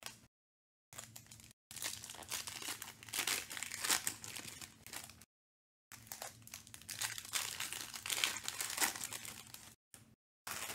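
Foil trading-card pack wrappers crinkling as packs are handled and cards are sorted, in stretches of a few seconds broken by short gaps of dead silence.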